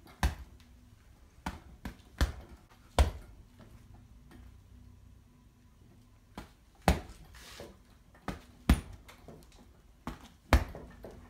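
Fingerless MMA glove punches thudding into a heavy punching bag: about ten irregularly spaced hits, with a pause of about three seconds midway.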